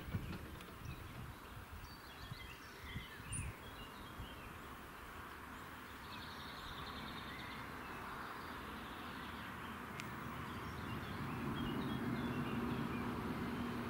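Birds chirping over quiet outdoor background noise. From about three-quarters of the way through, a car's engine comes closer and runs with a steady low hum that grows louder.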